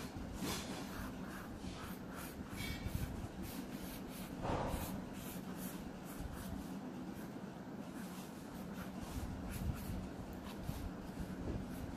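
Felt-tip sketch pen drawing on paper, a run of short scratchy strokes as an outline is traced.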